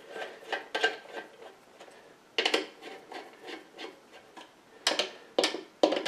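Hand screwdriver turning the lid screws of a plastic IP68 enclosure: a series of short scraping strokes in irregular bursts, loudest near the end.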